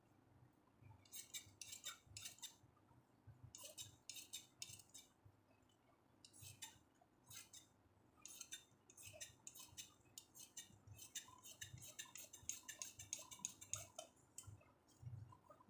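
Tailor's scissors cutting through folded cloth: a run of quick blade snips in several bursts, coming fastest in the last few seconds.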